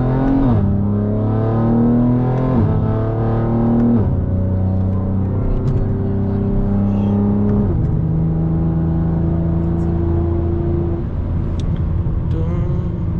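BMW G80 M3's twin-turbo straight-six accelerating through the gears, heard from inside the cabin: the engine note climbs in each gear and drops sharply at four quick upshifts, then settles into a steady drone at cruising speed.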